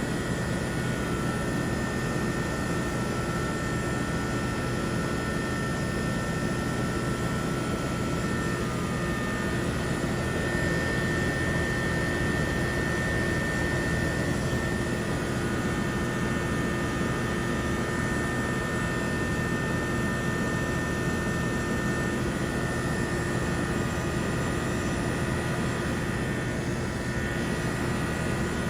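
Early-1990s Trane XE1000 heat pump outdoor unit running steadily: the hum of its Climatuff reciprocating compressor over the rush of the condenser fan.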